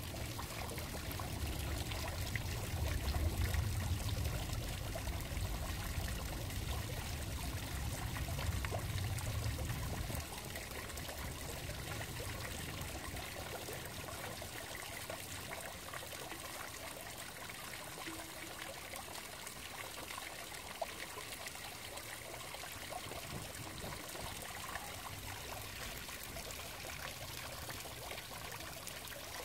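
Running water trickling steadily. A low rumble sits under it for the first ten seconds or so and stops abruptly.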